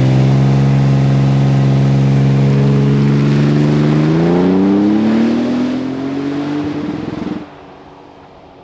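Toyota Tundra's twin-turbo V6 through a MagnaFlow cat-back exhaust, run hard in a burnout attempt in which the tyres keep traction. The engine holds a steady note for about four seconds, climbs in pitch for the next three, then drops off sharply to a much quieter rumble.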